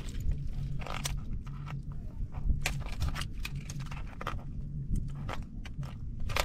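Irregular sharp clicks and scrapes of a metal crab hook prodding and tapping among shoreline stones and rocks.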